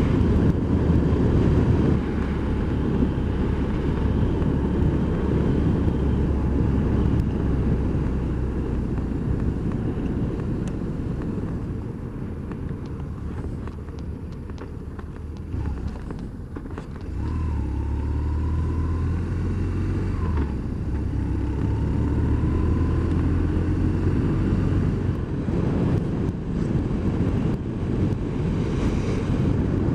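BMW R1200 R's air/oil-cooled boxer twin running under wind and road rush while riding. About halfway it eases off and goes quieter, then picks up again with the engine note rising as it accelerates.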